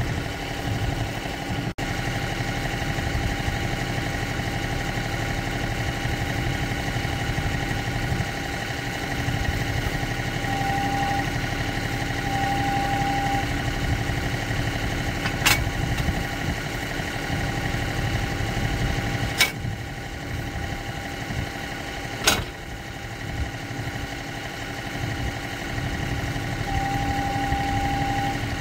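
John Deere compact tractor's diesel engine idling steadily, its note growing stronger briefly twice. Three sharp metal clanks come a few seconds apart around the middle.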